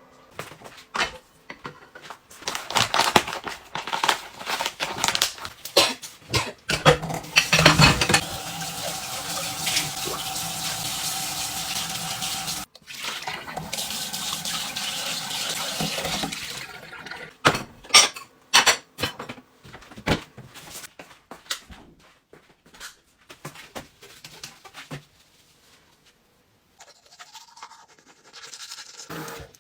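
Tap water running steadily into a sink for several seconds, cut off briefly once. Before and after it come sharp knocks and clatter.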